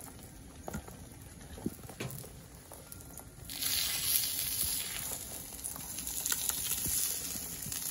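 Eggs frying in silicone egg rings on a flat-top gas griddle in bacon grease, sizzling. The sizzle is soft at first, then jumps sharply louder and brighter about three and a half seconds in and keeps going.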